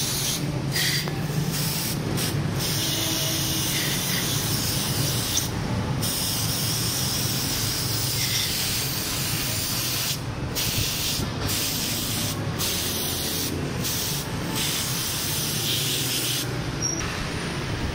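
3T carburetor-cleaner aerosol spraying through its thin extension straw onto a motorcycle carburetor to flush out deposits: a steady hiss, let off for a moment about a dozen times.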